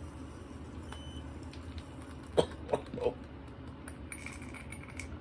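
A man coughing three times in quick succession about two and a half seconds in, after inhaling a dab of vaporised cannabis concentrate.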